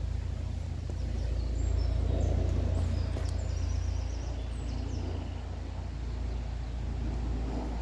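Waterfall rushing steadily with a deep rumble, with small birds chirping now and then over it.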